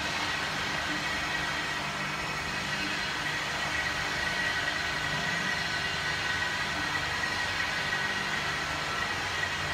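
RX-30L lab vacuum homogenizer mixer running: a steady motor hum with a thin high whine over a hiss, holding even throughout.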